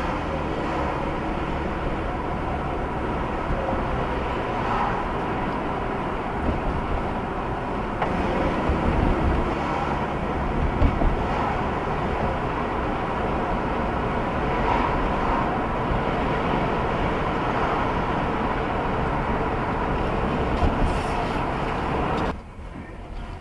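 Steady road and engine noise of a car driving in city traffic, heard from inside the cabin through a dashcam. It drops off sharply near the end.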